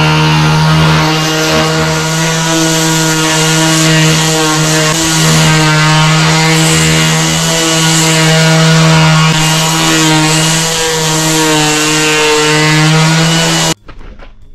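Ryobi random orbital sander running against a wooden board, a loud steady motor hum with a dense gritty sanding hiss. It stops abruptly near the end.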